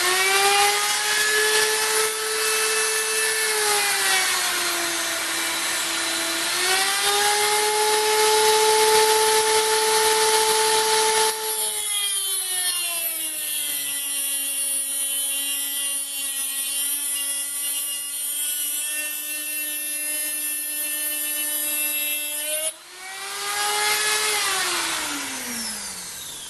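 Electric die grinder spinning up to a high whine, then grinding metal to open out a bolt hole. From about 11 seconds in, a rasping grind joins the whine and the motor's pitch drops under the load. Near the end it is eased off, speeds up, and winds down.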